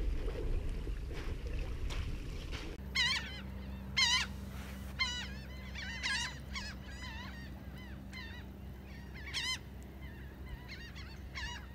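Birds calling: a string of wavering calls, several in quick succession from about three seconds in and more scattered toward the end.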